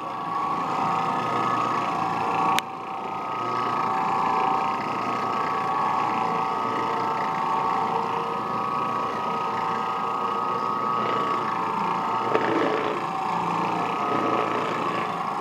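Oreck Orbiter 550MC orbital floor machine's electric motor running steadily with a constant whine, on a test run to check it works. A single sharp click sounds about two and a half seconds in.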